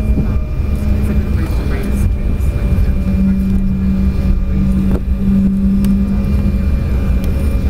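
Cabin noise inside an Embraer E190 rolling out on the runway after touchdown: a loud, steady low rumble of the jet's engines and wheels, with a steady hum in it.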